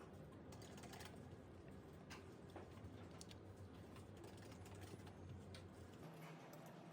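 Faint, scattered taps on a computer keyboard over a low steady hum; the hum stops about six seconds in.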